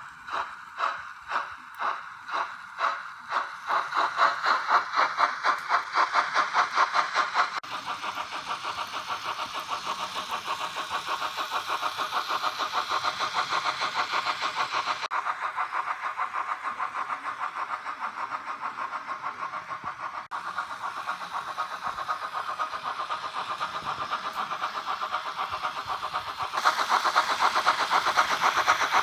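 Model steam locomotive chuffing as it gathers speed: the beats start at about two a second, quicken until they run together into a fast steady chuff, and grow louder near the end.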